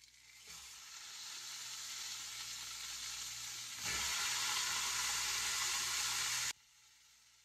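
Sizzling in a hot aluminium pressure-cooker pot as a whole raw chicken is lowered onto onion, garlic, tomato and whole spices. The sizzle builds, jumps louder as the chicken lands about four seconds in, and then cuts off abruptly.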